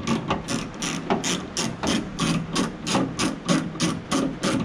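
Socket ratchet clicking steadily, about five clicks a second, as a bolt holding the door handle assembly is worked loose.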